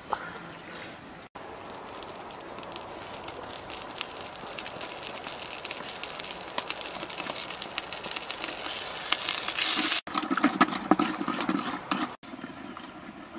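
A cooking pot boiling over a wood fire: a bubbling, crackling hiss that grows louder, with heavier, lower bubbling near the end.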